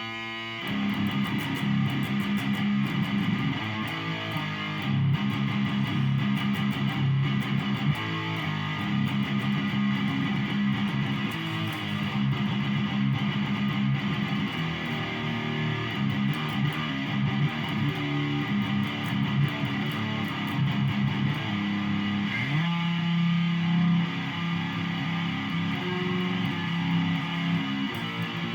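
Electric guitar tuned down to drop F#, played on its own: a riff of rapidly picked low notes that settles into a held low chord about three-quarters of the way through.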